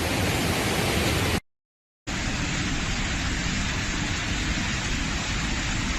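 Steady rushing noise of floodwater and heavy rain, cut by about half a second of dead silence a second and a half in, then going on.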